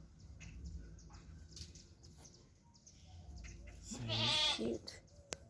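A week-old Pelibuey lamb bleats once, a loud wavering call about four seconds in, over a low background rumble; a sharp click follows near the end.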